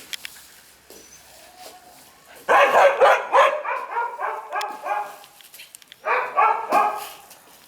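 Shiba Inu puppy yipping in quick high-pitched cries, about four a second, in a run of a few seconds and then a shorter run near the end.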